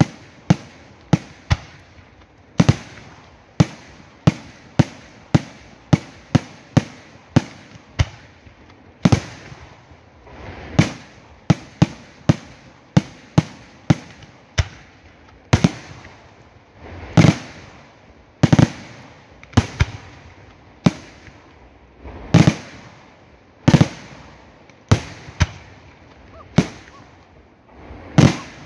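Fireworks display: aerial shells bursting in a steady run of sharp bangs, roughly one or two a second, with some louder booms that trail off in a rumble.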